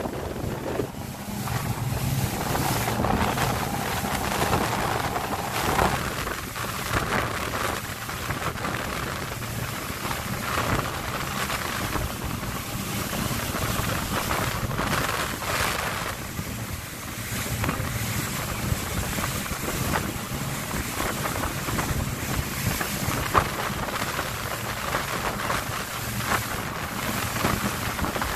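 Open-deck tour boat running at speed: a steady low engine drone under the rushing hiss of spray thrown off the hull, which swells and eases, with wind buffeting the microphone.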